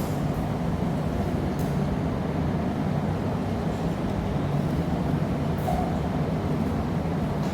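Steady low roar of a glassblowing studio's gas-fired furnace and reheating burners, with a couple of faint clicks.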